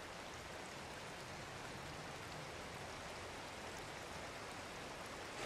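River water running over stones, a steady even rush of flowing water.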